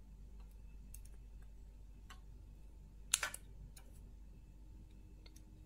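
Faint small clicks from handling a handheld component tester, with one sharper click about three seconds in.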